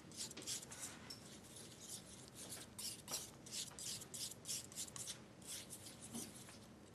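Pigment and a gum-and-water solution being mixed by hand on a glass plate: short scrapes and rubs of the mixing tool across the glass, about two or three a second.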